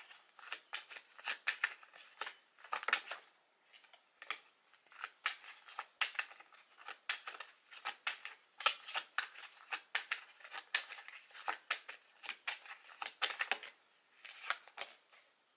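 A deck of tarot cards being shuffled by hand: a long run of quick, irregular card slaps and riffles, with brief pauses about three and a half seconds in and near the end.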